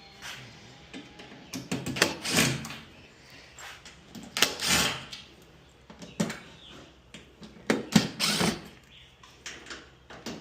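Clicks, knocks and a few short scraping rasps of washer panel parts and tools being handled as fasteners are taken out.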